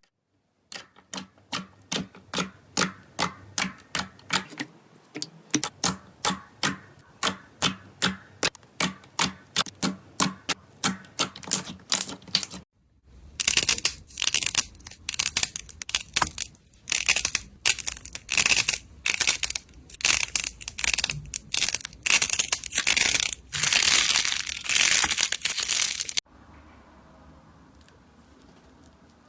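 Slime being pressed and worked by hand, making crisp clicking pops about two to three times a second. After a short break about 13 seconds in, a second stretch of denser clicking and crackling follows, dropping to a faint sound for the last few seconds.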